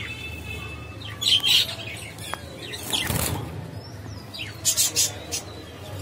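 Budgerigars chirping and chattering in short, scratchy high-pitched bursts, with a whistled note at the start and the loudest chirps about a second in and near the end.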